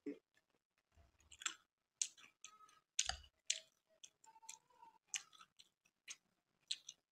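Close-up eating sounds: a string of sharp, wet clicks from chewing syrupy gulab jamun and kheer, with a metal spoon clicking in the bowl as a gulab jamun is scooped up.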